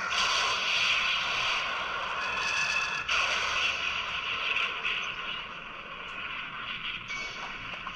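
Transformation sound effects from a Bandai Ultra Replica Orb Ring toy, played through its small built-in speaker as a continuous hissing, effects-laden sound. The sound changes about three seconds in and eases off somewhat after about five seconds.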